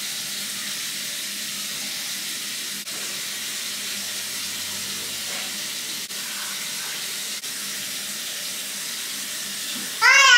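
A bathroom tap running steadily into a sink during toothbrushing. Near the end, a young child's voice rings out briefly, loud and high-pitched.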